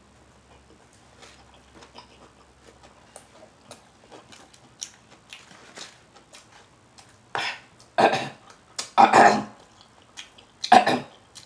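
Faint wet mouth clicks of close-miked chewing and smacking. From about seven seconds in come four loud burps, each about half a second long.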